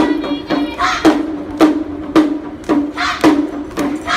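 A drum struck in a steady beat about twice a second, each stroke ringing briefly with a low tone, as music for a lion-dance performance.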